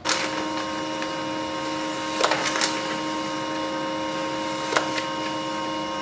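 Pantum M6500NW series laser printer running a print job: a steady motor whine made of several tones, with sharp clicks from the paper feed about two seconds in and again near five seconds.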